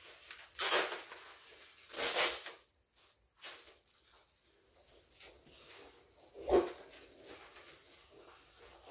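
Bubble wrap and plastic packaging rustling and crinkling in bursts as a package is unwrapped, with a soft thump about six and a half seconds in.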